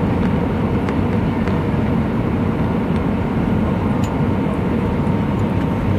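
Steady low rumble of an Airbus A319 airliner, with faint steady tones above it and a few faint ticks.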